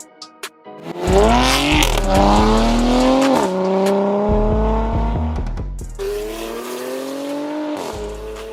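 Porsche Panamera 4S twin-turbo V6 through a valved catback exhaust with catless downpipes, accelerating hard. Its note rises from about a second in, drops sharply at a shift a few seconds later, and rises again after a break about six seconds in, over background music with a beat.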